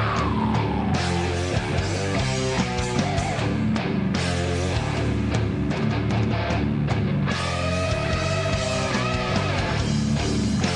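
Rock band playing heavy rock live: distorted electric guitar, bass and drums. A note slides down in the first second, and long held notes waver from about the middle to near the end.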